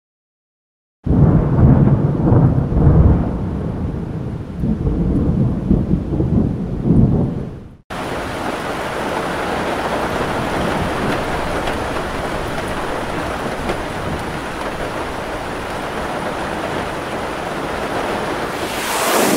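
Thunder rumbling in heavy, uneven rolls for several seconds, then, after an abrupt cut, a steady downpour of heavy rain.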